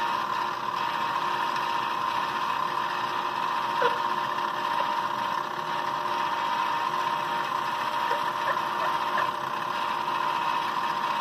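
Klutch benchtop milling machine running steadily with an even whine, its 4-flute end mill skimming molded details off a plastic model locomotive shell, with a few faint ticks.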